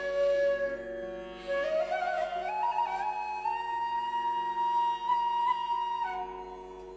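Background music: a slow flute melody of long held notes over a steady drone. The melody climbs to a higher held note about two seconds in and steps back down near the end.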